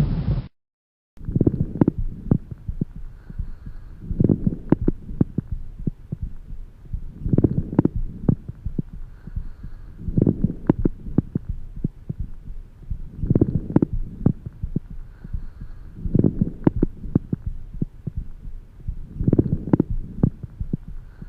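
An animal's breath sounds heard through a stethoscope: a swell of airflow noise with each breath, about every three seconds, over a steady low hum and many short clicks. They start after a brief silence about a second in.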